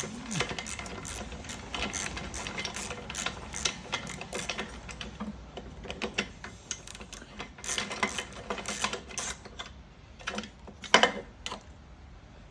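Ratchet wrench clicking in quick runs while loosening fasteners on a lawnmower, with a few louder knocks near the end.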